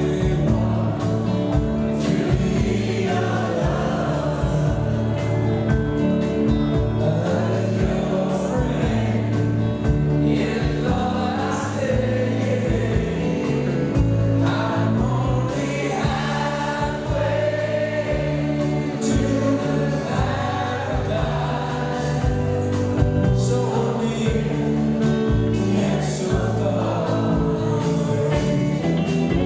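Live rock 'n' roll band music: a male lead singer over electric guitars, electric bass guitar and drums.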